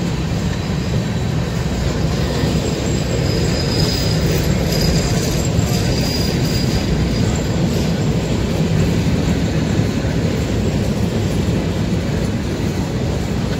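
Freight train's covered hopper cars rolling steadily past on steel rails: a continuous low rumble and rush of wheels on track. A thin, high wheel squeal rises for a few seconds around the middle.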